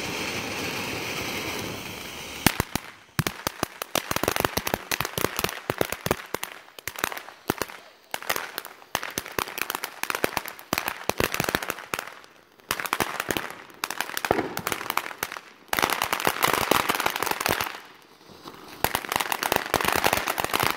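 Ground fountain fireworks spraying sparks: a steady hiss for about the first two and a half seconds, then dense crackling in bursts with short lulls, from the crackling stars thrown out in the spray.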